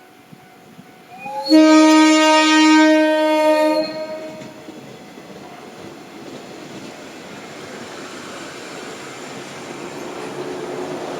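Electric train on the Sanyo Main Line sounding one warning blast of its horn, about two seconds long, starting about a second and a half in. The horn warns as the train creeps over a failed level crossing. After the horn the train's running rumble grows steadily louder as it draws near.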